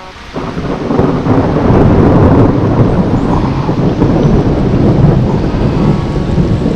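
Heavy rain pouring down on a pond, a loud, steady rushing noise that swells in over the first second.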